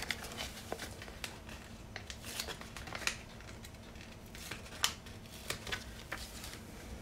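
Sticker sheets being handled and stickers peeled off their backing, in light scattered crinkles and clicks, the loudest about five seconds in.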